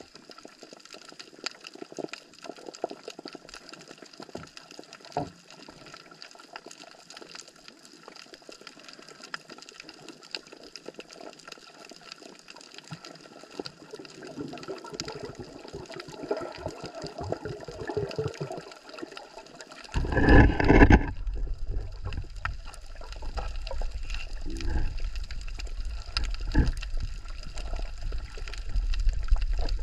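Water splashing and sloshing with scattered small knocks. About two-thirds of the way in, a sudden loud low rumble on the microphone begins and continues.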